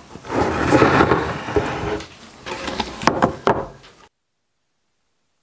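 Wooden cabinet door frames, oak with painted plywood panels, scraping and sliding on a wooden workbench as they are handled, then a few sharp wood-on-wood knocks. The sound cuts off suddenly about four seconds in.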